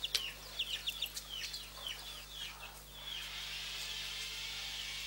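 Birds chirping: many short high chirps, each falling in pitch, in quick succession. From about three seconds in a steady hiss takes over, with a few fainter chirps.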